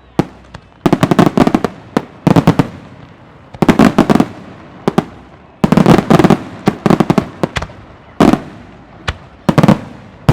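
Aerial fireworks shells bursting in rapid clusters of sharp bangs and crackles, a new cluster about every second and a half, each trailing off in an echoing rumble.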